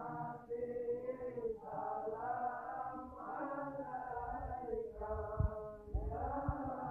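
A group of men chanting together in unison, a devotional chant sung in long held phrases that break every second or so. A couple of low thumps come near the end.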